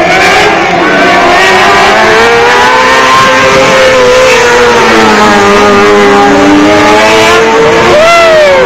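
Several 600cc micro sprint cars running laps together at high revs, their motorcycle-type engines loud and overlapping, pitches rising and falling through the turns. Near the end one engine's pitch climbs sharply and then falls away.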